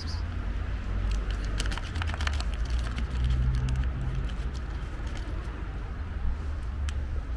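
A tabby cat eating wet food from a foam tray, with small clicking mouth sounds, and the plastic pouch of cat food crinkling as it is squeezed out, mostly in the first few seconds. A steady low rumble runs underneath.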